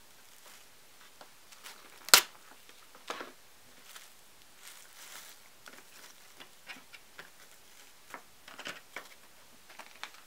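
Quiet kitchen handling sounds as rice and vinegared mackerel are pressed together for pressed sushi: scattered light taps and clicks, with one sharp knock about two seconds in and a smaller one about a second later.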